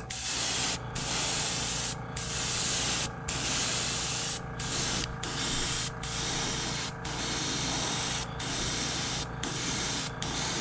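Airbrush spraying opaque white paint at about 25 to 30 PSI: a steady hiss of air and paint, cut by brief pauses about once a second.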